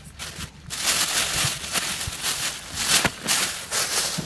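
Clear plastic wrapping crinkling and rustling as it is pulled off a coiled dog agility tunnel, a dense crackle lasting most of the time.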